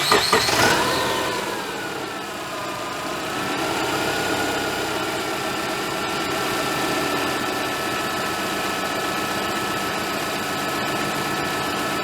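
Subaru EJ20 flat-four engine just started, running fast at first and settling over a couple of seconds to a steady idle. The accessory belt runs quietly on a freshly replaced idler pulley, without the high-pitched rattling of the worn one.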